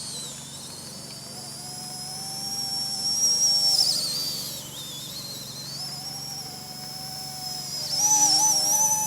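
RC ERA C123 EC135 RC helicopter's electric motor and rotor whining in flight, a high-pitched tone that wavers in pitch as the helicopter manoeuvres. It grows louder twice, about three and a half and eight seconds in.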